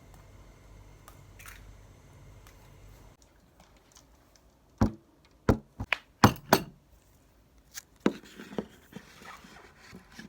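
A low steady hum that stops about three seconds in, then a run of sharp knocks and clicks, several close together from about five to seven seconds in and a few more around eight seconds.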